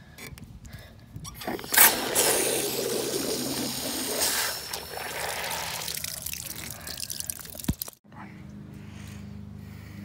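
Water rushing from an outdoor spigot into a rubber water balloon held on the nozzle, with water spilling and splashing onto the ground below. It starts suddenly about two seconds in and eases off after a few seconds.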